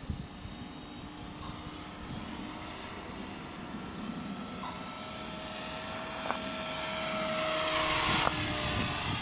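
Electric RC helicopter (eSky Belt CP with a four-blade rotor head) in flight: a steady whine from its brushless motor over the rotor buzz, growing louder as it comes closer and peaking near the end.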